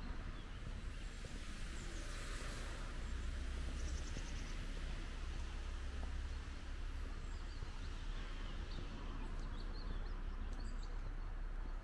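Outdoor ambience: a steady low rumble with faint, scattered bird chirps now and then.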